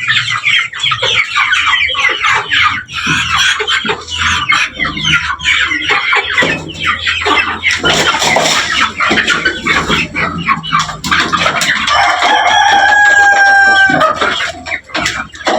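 A flock of desi chickens clucking and cackling all together, with a rooster's long crow near the end.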